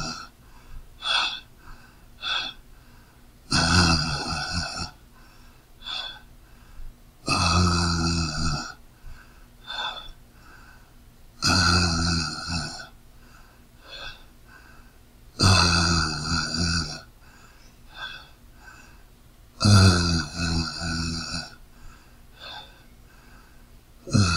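A man's voice exclaiming "ahh" over and over, each one about a second long and coming about every four seconds, with shorter, quieter vocal sounds between them.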